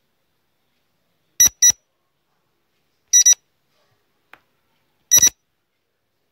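Electronic double beeps like a digital alarm clock, from a quiz countdown-timer sound effect: three quick beep-beep pairs, about two seconds apart.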